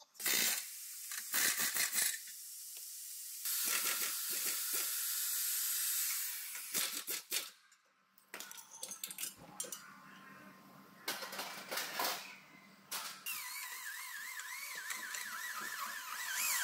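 Body-shop work noise over several edits: stretches of high hissing with sharp metal knocks and clicks. About three seconds before the end, a steady warbling tone that goes up and down about twice a second joins in.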